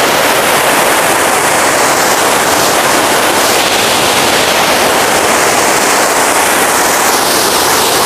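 Waterfall pouring into its plunge pool: a loud, steady rush of falling water.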